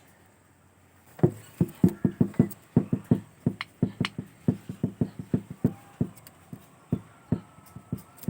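A rapid, uneven run of sharp clicks or knocks, about three to four a second, starting about a second in and slowing toward the end.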